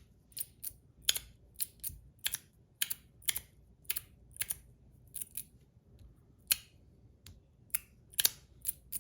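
42 Cosmo Last Mermaid XXL Slider V3 slider fidget being slid back and forth, each slide ending in a sharp click: about two clicks a second, unevenly spaced, some in quick pairs. It is a quiet fidget.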